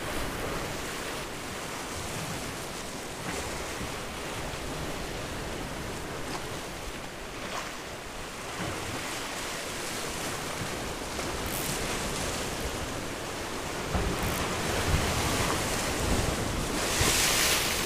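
Sea waves washing on the shore, with wind rumbling on the microphone. A louder hissing rush comes near the end.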